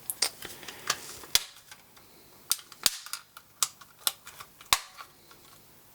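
Small sharp plastic clicks and taps, about a dozen at irregular intervals, as the Sony SRF-59 radio's plastic casing and parts are handled and snapped back together during reassembly.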